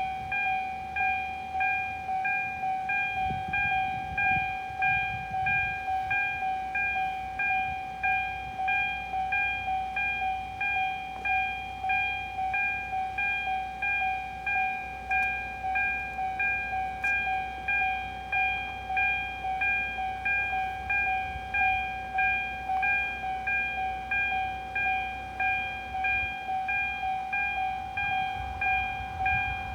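Japanese railway level-crossing alarm ringing a repeating two-tone ding, evenly about one and a half times a second, in a flat, listless-sounding tone. A low rumble swells briefly about three seconds in and again near the end.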